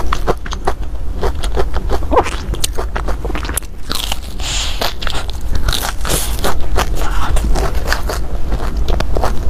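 Close-miked crunching and chewing of a deep-fried, breadcrumb-coated cheese snack, with many small crackles and a bigger crunchy bite about four seconds in. The crust is fried dry and hard.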